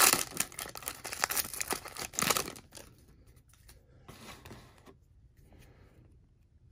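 Foil trading-card pack wrapper being torn open and crinkled: a dense crackle for about two and a half seconds, then a few faint rustles as the cards are handled.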